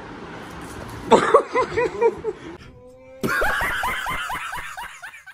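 Hearty laughter in quick, evenly spaced pulses, in two runs: one starting about a second in, and after a short break a second, longer run from a man laughing open-mouthed.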